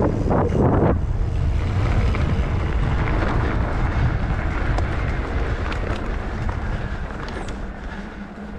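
Wind buffeting the microphone over a steady rumble of mountain bike tyres rolling over a trail, with a few scattered sharp clicks; the rumble dies down near the end.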